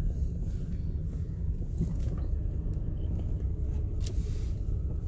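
Low, steady rumble of a car's engine and tyres heard from inside the cabin while driving slowly, with a faint click about two seconds in and another about four seconds in.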